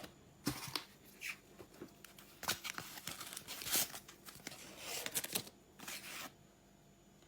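Puzzle packaging being handled: irregular rustling, crinkling and scraping noises that stop about six seconds in.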